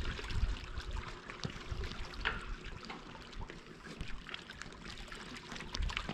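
Shallow water lapping and trickling among the boulders at the water's edge, with a few low thumps and small scattered knocks.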